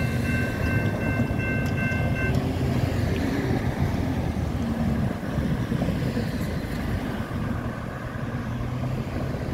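GS Type 2 electronic crossing bell ringing in a steady repeating tone while the crossing gates go up, cutting off about two seconds in. After that, the low rumble of cars driving over the crossing.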